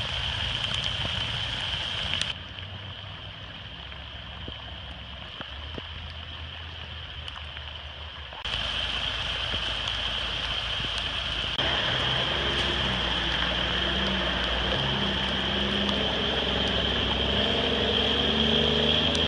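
A vehicle's engine running under a steady hiss of rain and moving water, in several clips cut together; the sound changes abruptly about two, eight and a half, and eleven and a half seconds in.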